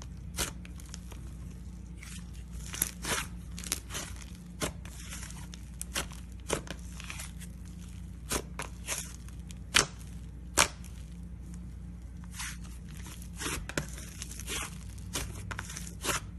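Slime being squeezed and worked by hand, giving irregular sharp clicks and pops, about one or two a second, over a steady low hum.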